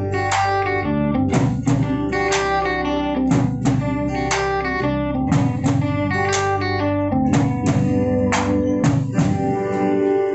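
Live band playing an instrumental passage: acoustic and electric guitars over a drum kit keeping a steady beat. The drum hits stop near the end, leaving a held chord ringing.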